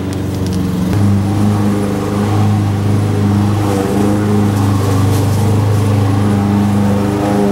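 A motor or engine running with a steady, deep hum that gets louder about a second in.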